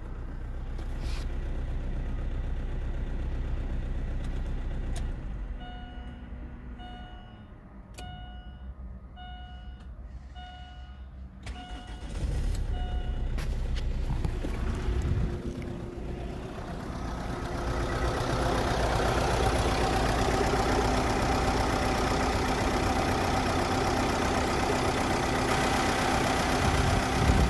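Chevrolet Nubira's 2.0-litre Z20S diesel engine idling. Partway through, the engine sound drops away while a dashboard warning chime beeps about ten times at a steady pace. The engine then runs again, louder from about two-thirds of the way in, heard under the open bonnet.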